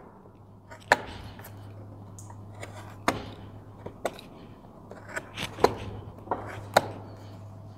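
Carving gouge cutting into a wooden molding: four sharp knocks one to two and a half seconds apart, with quieter clicks of cutting between, over a faint low hum.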